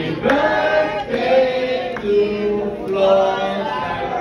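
Singing in slow, drawn-out held notes with a chant-like sound.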